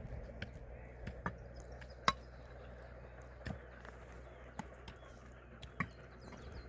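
Outdoor ambience: about six scattered sharp clicks and knocks, the loudest about two seconds in, over a low steady rumble, with faint high chirps like distant birds.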